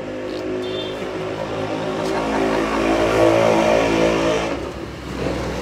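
A motor vehicle's engine revving, swelling louder over about three seconds and then falling away suddenly about four and a half seconds in.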